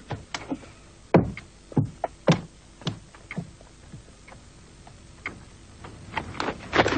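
A dozen or so sharp knocks and clicks at uneven intervals, coming thicker near the end.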